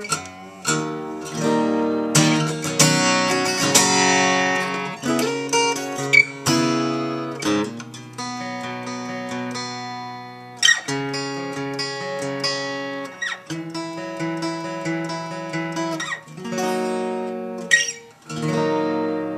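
1963 Gibson J-50 acoustic flat-top guitar played solo: a sequence of strummed chords and picked notes, each left to ring before the next.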